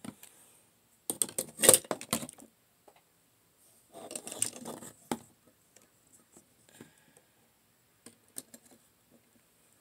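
Plastic action figures being handled and set down on a surface: bursts of clicking and clattering about a second in and again around four seconds in, then a few light clicks near the end.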